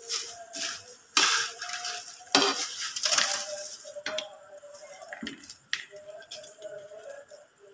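Metal spatula stirring honey-and-butter-coated cornflakes in an aluminium wok: rustling, scraping strokes with clinks of metal on the pan, strongest in the first few seconds, then only a few faint clicks once the stirring stops.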